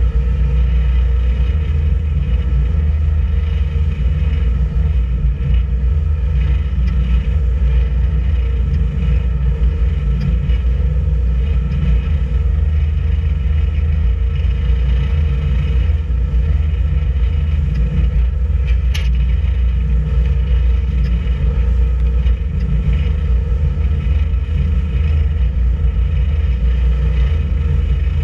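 A boat's engine running steadily while under way, a loud constant low rumble with a steady hum above it. There is one brief tick about two-thirds of the way through.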